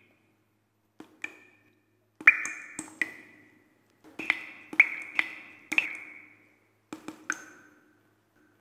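About a dozen sharp, percussive pings, each a click followed by a short ringing tone. They come in four quick clusters with silent gaps between them.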